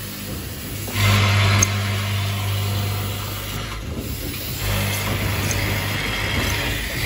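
Vibratory bowl feeder of a screw assembly machine humming steadily. It breaks off briefly a little past halfway, then resumes. A short burst of hiss joins in about a second in.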